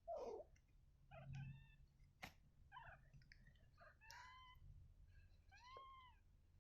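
Young kittens mewing faintly: several short, high-pitched mews that each rise and fall in pitch. There is a single sharp click about two seconds in.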